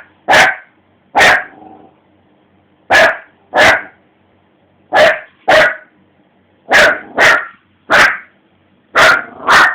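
Pet dog barking at its own reflection in a TV screen: about eleven short, loud barks, mostly in pairs about half a second apart, with pauses of a second or two between pairs.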